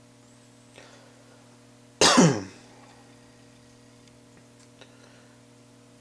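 A man clears his throat once about two seconds in: a short, sudden cough-like sound whose pitch falls over about half a second. A faint steady hum runs underneath.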